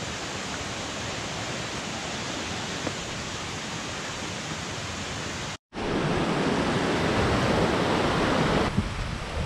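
A steady rushing hiss, cut off briefly a little past halfway. After the cut comes the louder rush of a small monsoon stream of runoff tumbling over rocks, which eases off near the end.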